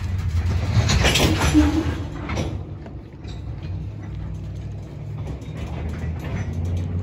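Freight train of coal hopper cars rolling slowly by: a steady low rumble of wheels on rail, with metallic clanking and rattling of the cars. A louder burst of metallic grinding comes about a second in, then scattered clicks and clanks.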